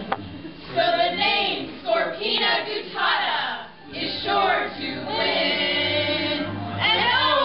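Several voices singing a song together with musical accompaniment, with a brief click at the very start.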